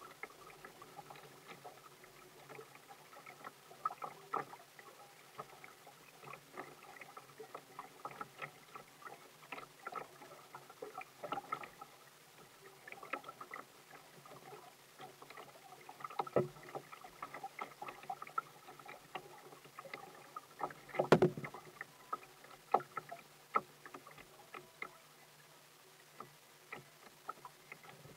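A kayak on a choppy lake: small waves slapping and lapping against the hull, with paddle-stroke splashes and drips making frequent irregular light ticks. One louder thump comes about two-thirds of the way through.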